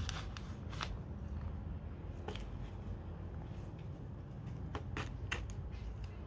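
Short scrapes and rustles of potting soil being scooped with a small hand tool and plant stems being handled, coming a few at a time, with a cluster about five seconds in, over a low steady rumble.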